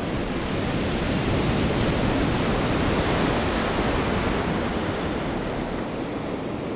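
Large Atlantic waves breaking on the beach in a steady wash of surf that swells a little and eases off, with strong wind buffeting the microphone.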